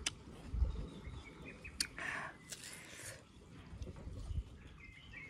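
A person biting into and chewing ripe watermelon: wet, crisp crunching with a few sharp clicks, and faint bird chirps behind.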